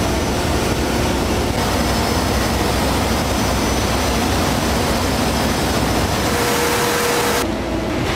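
Paper-making machinery running in a mill: a loud, steady mechanical rush and hum with faint whining tones. It changes character abruptly about one and a half seconds in and again near the end.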